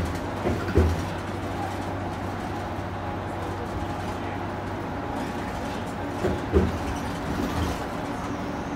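Steady engine and road noise heard inside a moving bus, with two brief thumps, about a second in and again near six and a half seconds.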